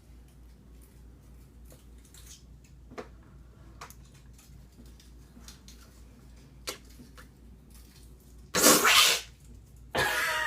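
A person's held-in, stifled sneeze comes out as a single short, loud burst near the end, after several seconds of quiet with a few faint clicks. A second loud vocal outburst begins just before the end.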